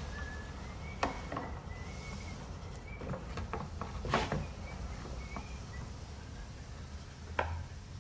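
A few scattered knocks and clinks, the loudest about four seconds in, over a low steady hum, with faint short high chirps in the background.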